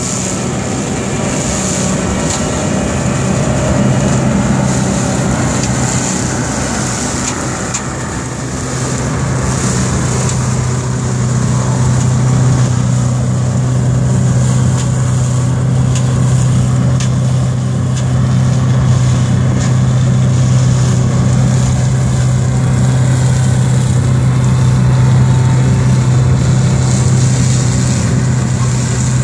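A tractor and the PTO-driven OMARV TER 190 Extra mower-collector it tows, running steadily while cutting and collecting rough grass: a strong, even low hum over a broad rushing noise, with a few sharp ticks through the middle.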